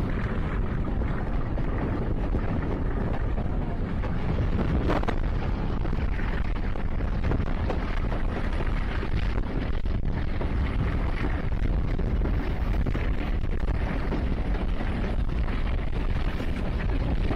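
Wind buffeting the microphone held out of a moving passenger train's window, over the steady rumble of the train running along the track, with a single brief knock about five seconds in.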